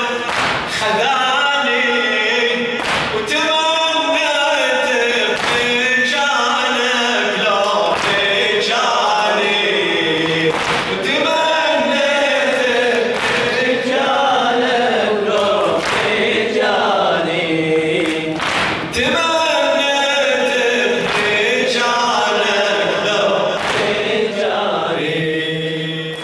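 A male radood chanting a Shia Muharram latmiya elegy over a microphone, answered by a congregation chanting in chorus. Sharp strikes land about every two to three seconds, in time with the chant, as the mourners beat their chests.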